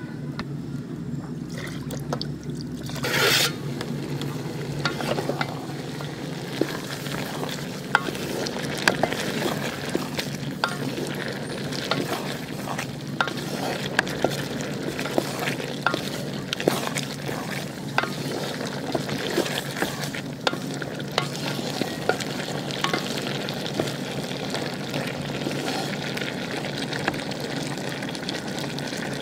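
Bottle gourd and shrimp sizzling in a metal pot while a wooden spatula stirs them, with many sharp clicks and scrapes of the spatula against the pot. A short loud burst about three seconds in.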